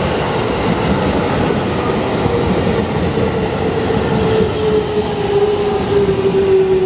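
Electric train running through the station: a steady rumble of wheels on rail under a whine that slowly falls in pitch and grows louder toward the end.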